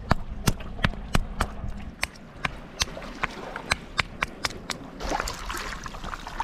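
A hand-held stone knocking repeatedly against a rock to strike limpets loose, sharp taps about three or four a second. The taps stop about five seconds in, and a softer noise follows.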